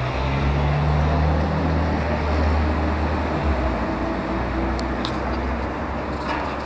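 A large vehicle's engine running close by, a steady low hum over street traffic noise, with a few light clicks about five seconds in.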